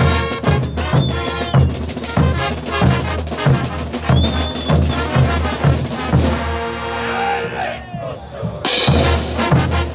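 Bolivian brass band playing a morenada: bass drum and snare keep a steady, heavy beat under the brass. About six and a half seconds in the drums drop out and the brass holds long chords with sliding notes, then the full band crashes back in near the end.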